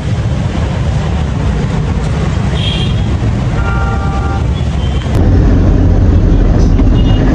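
Steady low rumble of road traffic, with a vehicle horn sounding once, for just under a second, about three and a half seconds in; the rumble gets louder about five seconds in.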